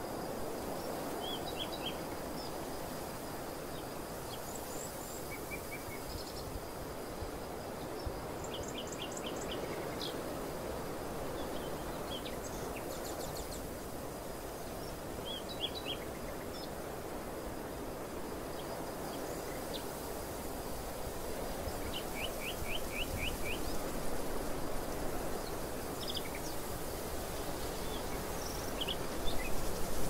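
Open-field ambience: a steady rush of outdoor noise with small birds chirping at intervals, several calls being quick trills of five or six notes, and a faint steady high tone behind. The rush grows louder and gustier near the end.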